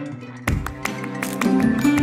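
Background music played on plucked guitar, with sharp picked notes; a louder passage comes in about half a second in.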